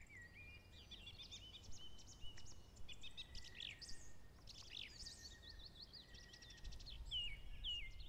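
Woodland songbirds singing and calling: many short high chirps, trills and gliding notes overlapping, with a run of repeated falling whistled notes near the end.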